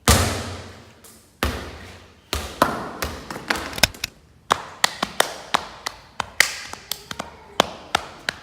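A loud knock, then a run of irregular sharp taps and knocks that come several a second from about halfway on, each dying away quickly.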